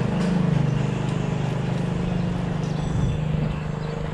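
Small motorcycle engine idling steadily.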